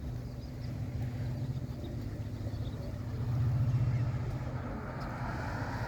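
An engine running with a low, steady rumble that swells for about a second midway, and a rushing hiss that builds near the end.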